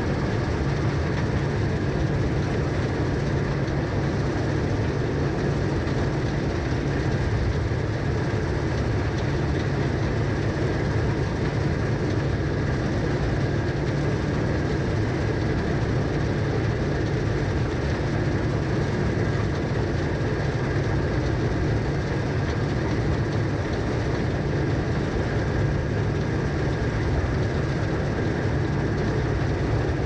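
John Deere 2056 combine harvesting wheat: the header's auger and reel turning as the crop is cut, over the combine's engine, a steady, unchanging mechanical noise with a low hum and a faint high whine.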